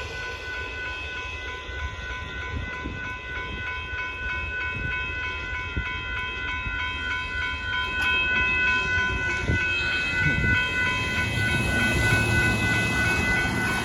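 Railroad grade-crossing warning bell ringing rapidly and steadily over the rumble of a passenger train rolling past on the rails.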